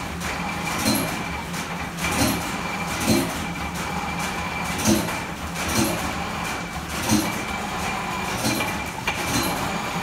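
Antique flat-belt lineshaft-driven lathes running, a steady mechanical clatter with a steady high whine and a sharp clack roughly once a second.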